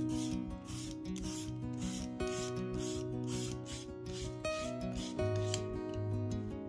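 Julienne peeler's toothed blade rasping down a raw potato in quick repeated strokes, about two to three a second, cutting it into thin strips. Acoustic guitar music plays underneath.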